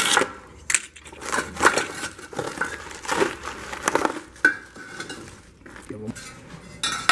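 Terracotta hollow ventilation blocks clinking and knocking against one another as they are handled and stacked, a series of irregular sharp clinks.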